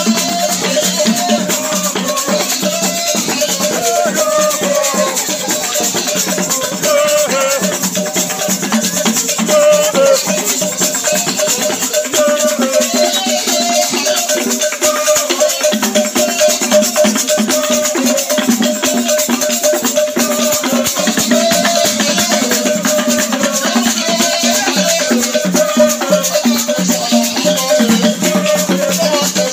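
Loud dance music played to a dancing crowd, with a fast rattling percussion beat over steady pitched instrument lines.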